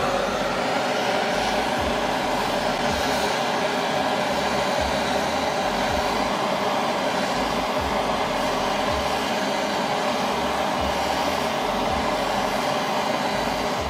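Handheld propane torch burning with a steady hiss, its flame held on a steel motorcycle headlight bracket to heat it for bending back straight.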